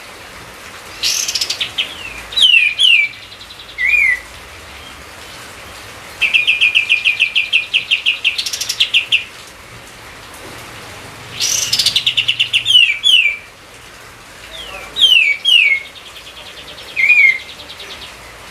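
A songbird singing in repeated phrases of fast chattering trills and short, high, falling whistled notes, with brief pauses between phrases.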